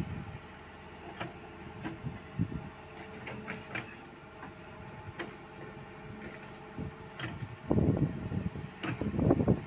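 Loaded light dump truck driving away on a rough dirt road: its diesel engine runs steadily while the steel dump body rattles and knocks over the bumps. Near the end, loud gusts of wind buffet the microphone.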